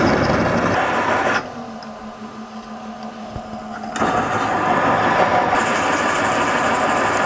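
Milling machine counterboring a hole in a steel plate, the counterbore cutting into the metal. The cut is loud for about the first second and a half, drops back to the spindle's steady hum, then bites in loud again about four seconds in.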